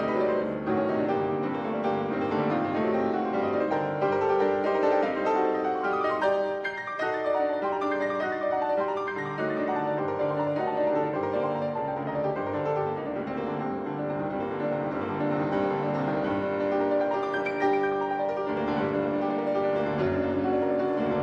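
Instrumental background music led by piano, with sustained notes over a steady bass line.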